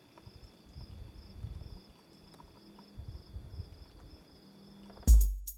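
Crickets chirping in a steady, evenly pulsing rhythm over faint low rumbling. About five seconds in, loud music with a heavy bass beat cuts in abruptly.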